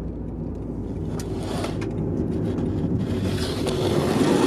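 Steady low rumble of a car's engine and tyres heard from inside the cabin while driving. Near the end a rising rustle and a few knocks as the dashboard camera is handled.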